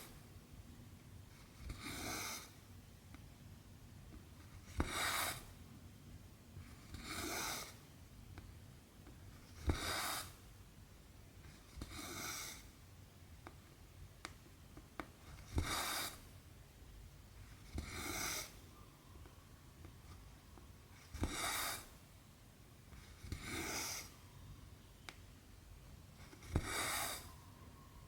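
Cotton embroidery thread being pulled through cross stitch fabric, a short rasping swish every two to three seconds, about eleven pulls, with faint ticks as the needle passes through the cloth.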